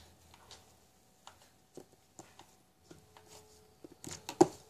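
Hands handling a thick green cloud cream slime: faint scattered clicks and small sticky taps, then a few louder knocks about four seconds in as the hand comes back down onto the board.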